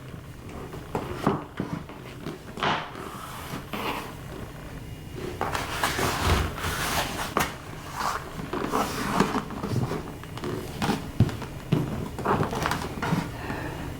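Scattered light knocks and scrapes from a length of shoe moulding being handled and set in place on the floor to be marked for a cut, with a longer stretch of scraping and rustling in the middle.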